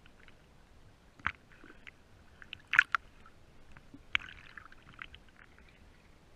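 Small waves lapping and splashing against a waterproof camera housing at the sea surface, with a few sharp short splashes or knocks.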